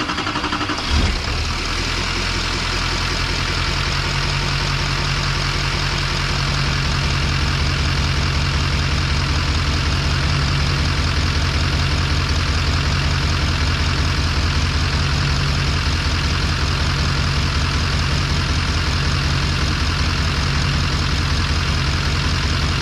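GMC pickup's turbo-diesel engine firing up, with a brief surge about a second in, then idling steadily. It has just been restarted after its fuel filter was primed.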